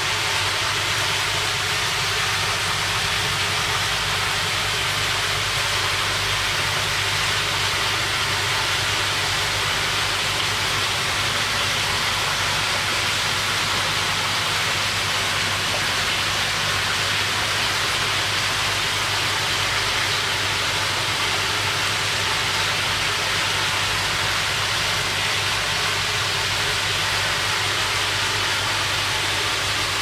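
Steady rushing noise with a low hum underneath, unchanging throughout.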